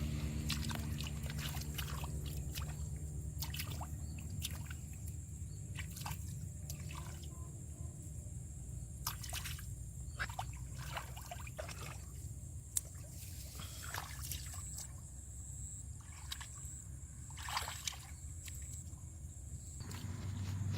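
Water dripping and splashing in small, irregular splashes over a low steady rumble. A motor hum fades out in the first second or so.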